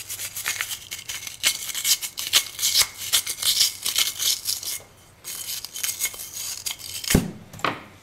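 A brush scrubbing the inside of a rusty steel oil furnace filter canister, fast scratchy strokes against the rust deposits, pausing briefly about five seconds in. Near the end there is a sharp knock, then a second one.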